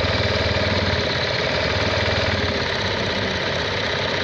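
Sewing machine running steadily at speed, its needle mechanism clattering rapidly as it stitches a decorative design pattern.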